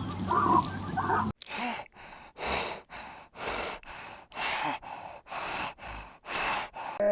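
Short pitched calls stop abruptly at a cut about a second in. Then an animal breathes hard, with a run of about ten quick, rasping breaths at roughly two a second.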